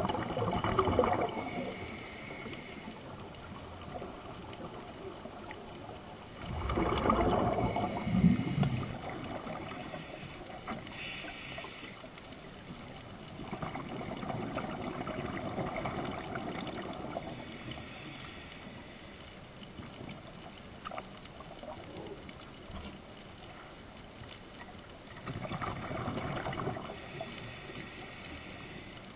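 Scuba diver's regulator breathing heard underwater: a hiss on each inhale and a bubbling rush on each exhale, four breaths over a steady background of water noise.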